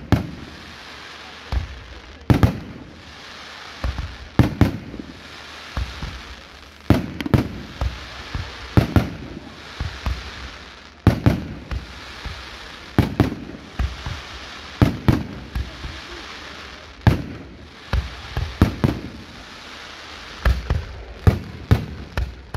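Fireworks exploding in a long, irregular barrage of sharp bangs, one or two a second and often two or three in quick succession, over a steady hiss.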